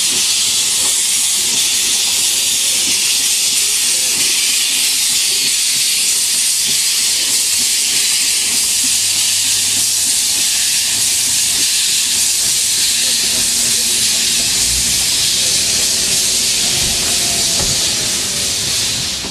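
Steam hissing steadily from around the cylinders of SKGLB No. 12, a 760 mm narrow-gauge steam tank locomotive, as it moves slowly with its cylinder drain cocks open.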